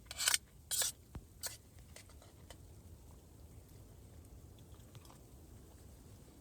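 Someone eating supper: two short loud rustling or scraping noises in the first second, a couple of lighter ones just after, then only faint scattered clicks of eating.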